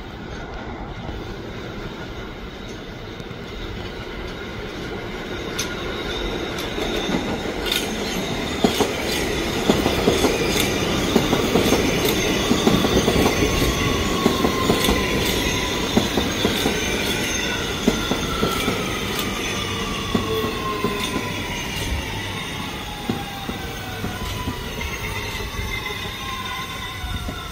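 R211T subway train passing at speed on express track. The running noise grows louder to a peak about halfway through, then fades as the cars go by, with many sharp wheel clicks. Through the second half a high whine falls steadily in pitch.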